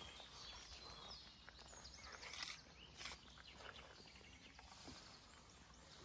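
Quiet riverside ambience with faint bird chirps, broken twice near the middle by short rustles of grass, reeds and a landing net being handled.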